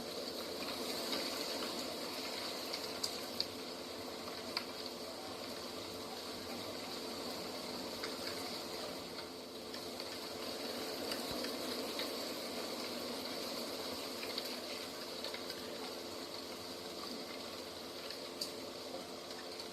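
Steady rushing outdoor nature ambience with a few faint ticks scattered through it.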